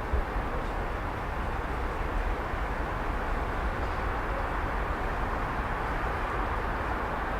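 Steady hum of distant city traffic: a continuous low rumble and wash of far-off vehicles, with no birds or insects.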